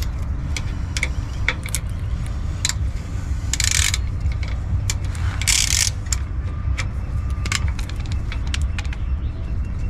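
Hand ratchet clicking as a sway bar link bolt is run into the welded nut of the rear axle bracket: scattered single clicks, with two short bursts of fast ratcheting a few seconds in. A steady low rumble runs underneath.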